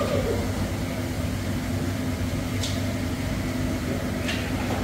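A steady low hum, with two short hisses about two and a half and four seconds in.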